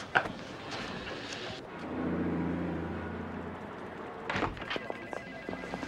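A vehicle engine running steadily for about two seconds as street traffic, then a single thud.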